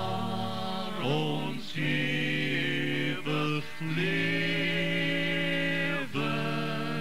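Slow hymn music moving through long held notes, the longest lasting about two seconds each, with brief breaks between them.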